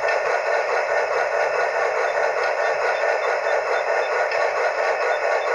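Steady rushing steam-engine sound from a Sierra sound board, played through the locomotive's small speaker. The card is running without its small backup battery, a state in which it does not play at its best.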